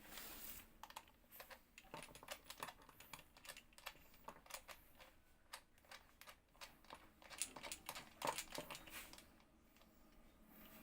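Faint, irregular clicks and taps of plastic pressure-washer parts being handled and fitted together during assembly.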